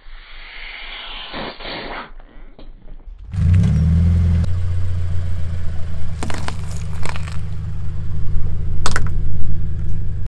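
A car tyre squishes and scrapes slowly over a soft toy in slime. Then a car engine hums low as the tyre rolls onto a cucumber and crushes it, with a few sharp crunches and splats about halfway through and again near the end. The sound cuts off suddenly.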